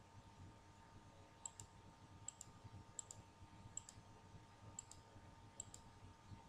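Faint sharp clicks, each a quick double click, repeating six times at roughly one-second intervals over near-silent room tone.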